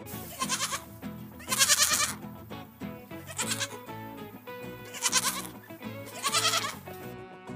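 Goats bleating about five times, a loud call every second or so, over background music.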